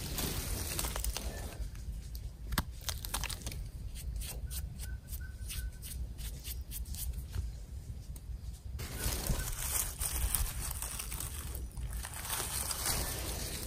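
Rustling and crackling of dry leaf litter and twigs in irregular bursts, busiest near the start and again in the second half, over a low rumble.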